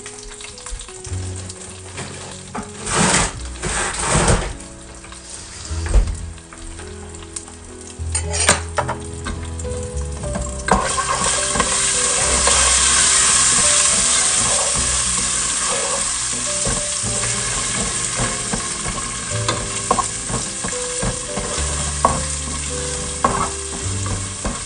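Onions frying in hot oil and ghee in a nonstick pot as ginger and garlic paste cubes melt in, stirred and scraped with a wooden spatula. The sizzle is quieter at first, with a few scrapes, then about ten seconds in it grows much louder and stays loud.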